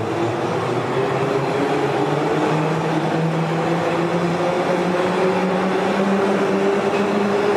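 Inside a class 81 metro car on the move: the traction motors and gearing whine over the steady rumble of the running train, the whine rising slowly in pitch as the train gathers speed.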